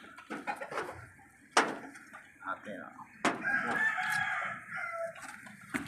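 A rooster crowing once, a long call of about two seconds starting a little past halfway, with a few sharp knocks before and after it.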